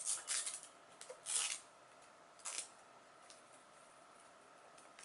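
Short rustling scrapes of a coiled plastic USB cable being handled and unwound, four of them in the first three seconds, then quiet.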